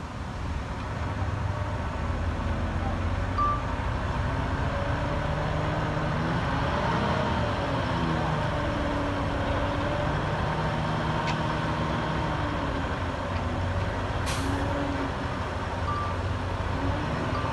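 Heavy diesel construction machinery working, its engine note rising and falling as it revs under load. A few short high beeps sound, and a brief hiss of released air comes about fourteen seconds in, like a truck's air brake.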